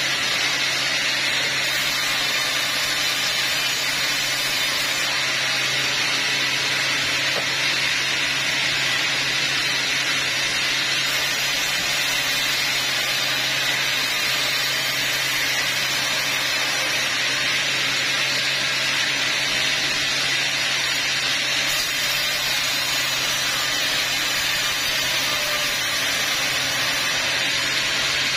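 Large sawmill band saw running and ripping teak logs: a constant whirring hiss from the blade cutting wood over a steady low hum from the drive.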